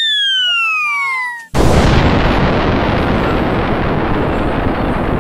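A high whistle glides steadily downward in pitch. About a second and a half in, it is cut off by a sudden loud blast that carries on as an even rush of noise. This is the classic falling-bomb whistle and explosion sound effect.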